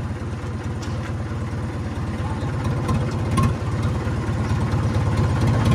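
Mahindra tractor's diesel engine running with a steady low throb, heard from the driver's seat, growing a little louder about two seconds in as the tractor is eased forward. A brief knock about three and a half seconds in.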